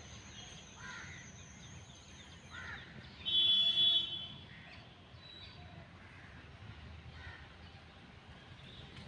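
Crows cawing, a harsh call now and then. About three seconds in comes a louder, high-pitched whistle-like tone lasting about a second, from an unknown source.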